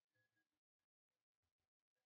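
Near silence: a pause in the narration with no audible sound.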